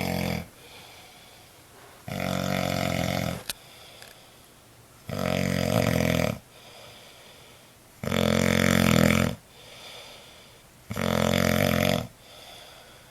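A sleeping man snoring loud and deep: four long snores, each a little over a second, come about every three seconds, with fainter breathing between them.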